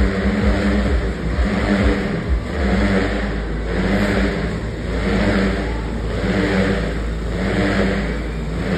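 Motorcycle engines revving as the bikes circle inside a steel-mesh globe of death, the engine note swelling and fading about once a second with each loop.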